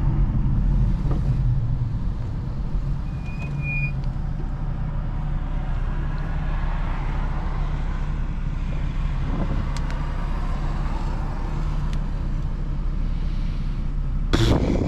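Interior sound of a BMW 435i with its turbocharged N55 inline-six running steadily while cruising, with road and tyre noise. A short high tone comes about three seconds in, and a brief sharp knock near the end.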